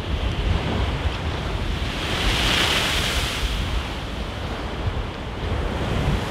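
Rough sea surging and breaking against a seawall, with wind buffeting the microphone. A louder hissing rush swells up about halfway through and dies away.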